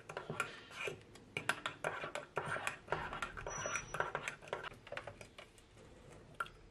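Metal teaspoon clinking and scraping against a ceramic mug in a quick run of strokes as a hot drink is stirred, thinning out to a few taps near the end.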